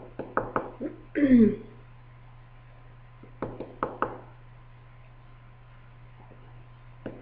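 A person's short throat-clearing vocal sound, falling in pitch, just over a second in, among a few scattered small clicks, over a steady low electrical hum.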